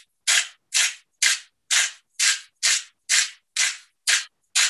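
Hand-twisted salt grinder grinding salt into a bowl in a steady run of short strokes, about two a second.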